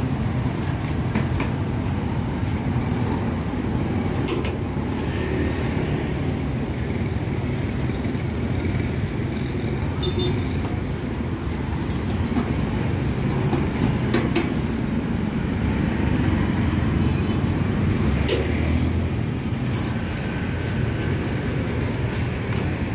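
Busy street ambience: a steady rumble of road traffic, with occasional sharp clicks and knocks.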